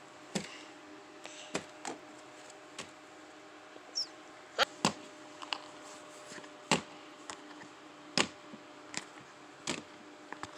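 Handling noise: about a dozen soft clicks and taps at irregular intervals, over a faint steady hum.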